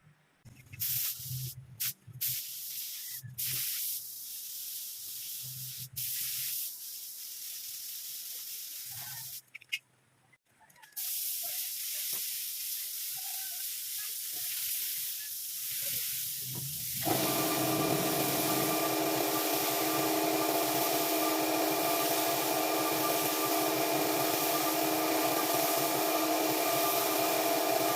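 A workshop tool on the van's bodywork, giving a hissing noise in short stop-start bursts at first, then running without a break. From about 17 seconds a steady machine whine joins in and the sound gets louder.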